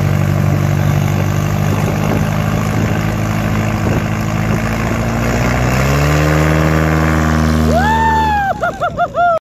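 Lil' Cub STOL bush plane's piston engine and propeller running steadily, then throttled up to full power about six seconds in for a very short takeoff run, the pitch stepping up. Near the end a loud high whoop rises, holds and then warbles several times.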